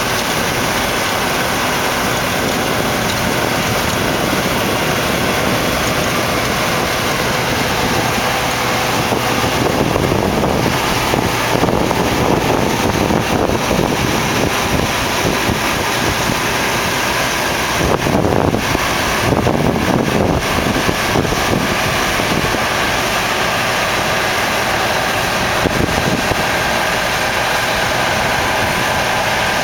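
John Deere 1177 combine harvester running steadily under load while cutting barley, a constant mechanical drone. Wind buffets the microphone unevenly through the middle stretch.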